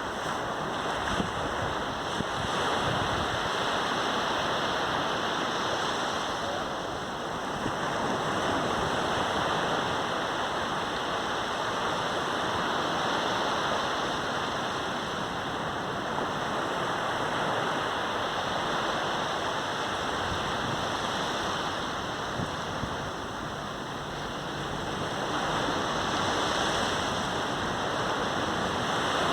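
Sea waves breaking on a sandy beach: a continuous wash of surf that swells and eases every several seconds, with a dip about a quarter of the way in and a rise near the end.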